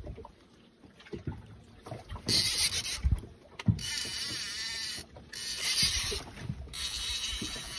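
Fishing reel winding in line in several spurts, a whirring hiss that starts and stops abruptly, as a hooked dentex is brought up on a hard-bent rod. Low sloshes and knocks of water against the boat underneath.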